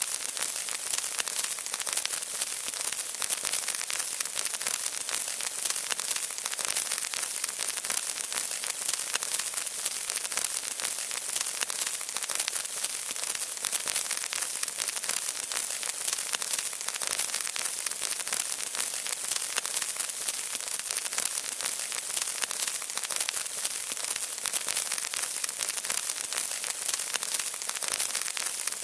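Sound effect of a lit bomb fuse sizzling and crackling, a steady hiss dense with tiny crackles that runs on without pause or change.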